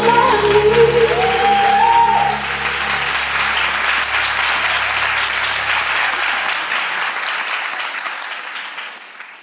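Audience applauding as a song ends on a held sung note about two seconds in; the applause continues steadily and fades out near the end.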